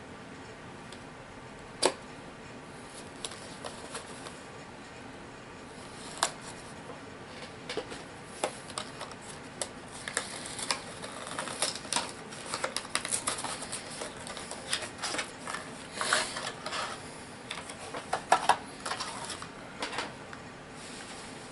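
Hands opening a HeroClix booster and handling its packaging and plastic miniatures: scattered clicks, snaps and rustles, a sharp snap about two seconds in and another around six seconds, then a busier run of clicks and rustling through the second half.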